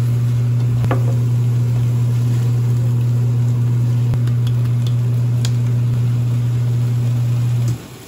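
Steady low electric hum of a kitchen appliance running by the cooktop, cutting off suddenly near the end, with a few light taps and scrapes of a spoon and silicone spatula stirring vegetables and tofu noodles in a nonstick pan.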